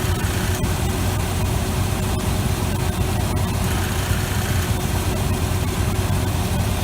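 The Chevy 454 big-block V8 of a 1988 R35 dually idling steadily, with a faint steady whine over the engine note.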